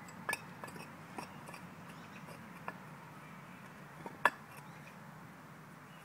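Sharp clinks of a hand tool knocking against stone paving slabs: a handful of scattered taps, the loudest about four seconds in.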